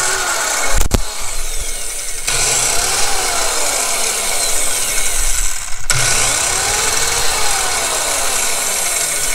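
TackLife 5.8-amp compact circular saw, with a 4-3/4-inch 24-tooth wood blade fitted, running free in the air with no load: a steady, loud motor and blade whine, dipping briefly a couple of times.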